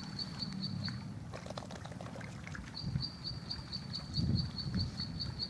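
A small animal's rhythmic high-pitched chirping, about five short pips a second, which stops for a couple of seconds and then starts again. A few dull low thumps near the end.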